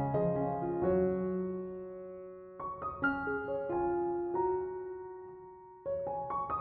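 Slow, gentle piano music: notes struck in small clusters, each left to ring and fade before the next phrase.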